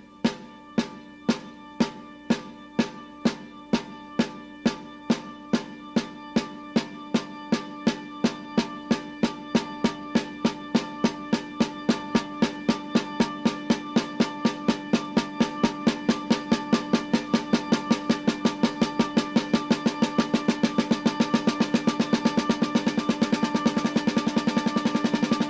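A drum, tagged as snare, in a 1968 psychedelic rock recording. It is struck about one and a half times a second with a ringing tone, and the strokes speed up steadily until they run together into a fast, louder roll near the end.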